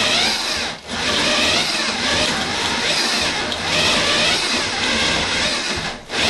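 Electric drill with a paddle (spade) bit running, boring into a wooden fire block. The drill eases off briefly about a second in and again near the end.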